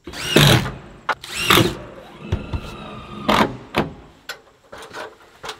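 A small electric motor whirring in short spurts that rise and fall in pitch, with a steadier run in the middle and scattered clicks and taps between.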